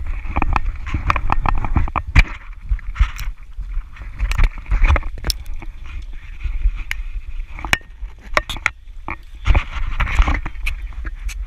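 Snowboard sliding and scraping over packed snow, with wind rumbling on an action camera's microphone and many sharp knocks and clicks throughout.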